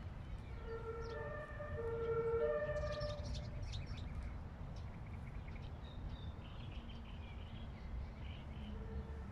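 Two-tone emergency-vehicle siren alternating between a lower and a higher pitch for about two and a half seconds, over a steady low rumble. Short high bird chirps come in later.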